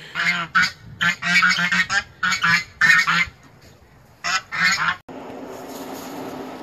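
Geese honking loudly in a rapid run of short calls, with a last pair of honks about four and a half seconds in. About five seconds in, the calls give way to a steady low hum.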